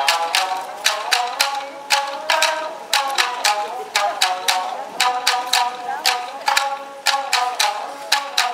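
Tsugaru shamisen ensemble of four playing together. The plectrum strikes the strings hard several times a second, so each note snaps and then rings.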